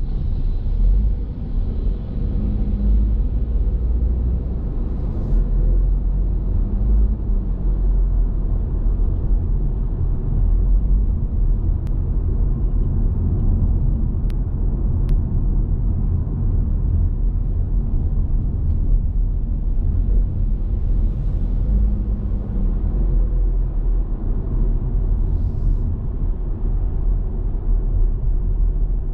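Steady low rumble of a car driving along: road and engine noise.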